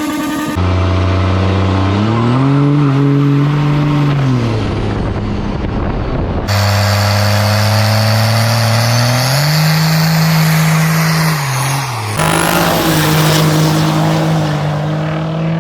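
Vehicle engine revving in three short spliced clips: in each the engine runs steadily, rises in pitch, holds, then drops back, with abrupt cuts between clips about half a second, six and a half seconds and twelve seconds in.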